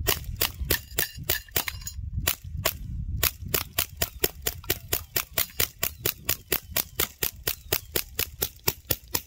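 Rapid gunfire: a long string of single shots, about four a second, with two brief pauses in the first three seconds.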